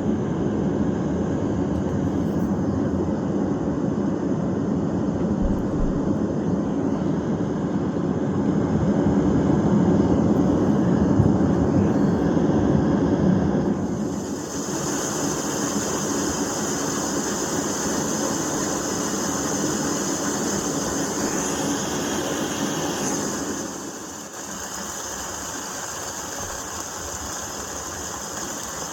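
DREAMIE sleep aid's speaker playing ambient noise soundscapes from its sound library. A deep, rumbly noise changes about halfway through to a brighter, hissier noise, then to a quieter setting near the end, as tracks or settings are switched.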